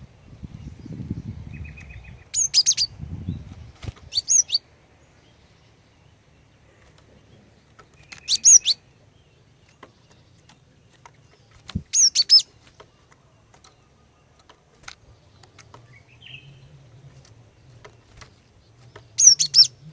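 Female cinereous tit (glatik batu) calling: five short bursts of a few high, quickly sweeping chirps, several seconds apart, with a brief buzzy rattle near the start. A low rumble runs underneath for the first few seconds.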